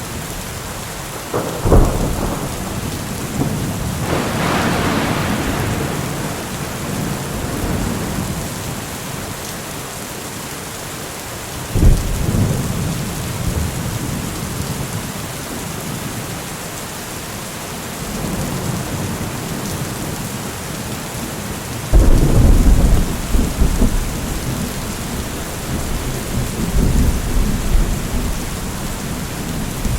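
Steady heavy rain falling, with thunder cracking three times, about two seconds in, near the middle and about two-thirds of the way through, each crack followed by a long low rumble; the last roll is the loudest and longest.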